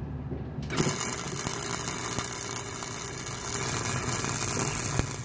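Arc of a Harbor Freight 125-amp, 120-volt flux-core wire welder striking under a second in, then crackling and sizzling steadily as a bead is run on steel bar. One sharp crack stands out near the end.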